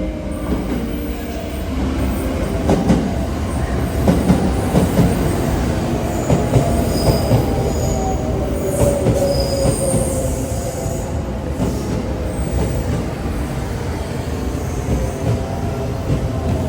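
Train moving along the platform, wheels clacking over rail joints for a few seconds early on, with high squeals from the wheels and a steady drone that slowly falls in pitch.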